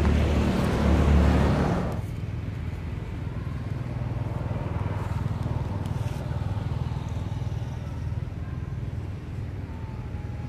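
A loud rush of wind buffeting the microphone, which cuts off sharply about two seconds in, followed by a steady low engine hum from a motor vehicle.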